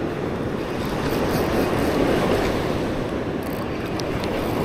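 Steady wash of surf on an open beach, mixed with wind on the microphone.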